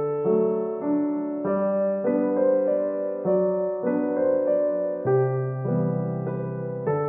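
Slow, gentle piano music, held chords changing about once a second.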